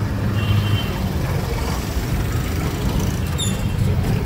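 Auto-rickshaw ride heard from inside the cabin: a steady low engine rumble with street traffic around it. A brief high tone sounds about half a second in, and a short high chirp about three seconds in.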